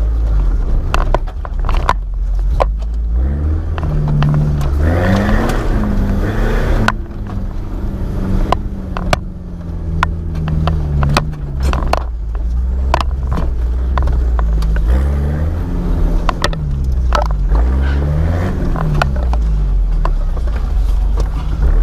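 Off-road 4x4's engine revving up and down again and again under load while crawling over rough ground, with many sharp knocks and clatter. A brief rush of noise comes about five seconds in.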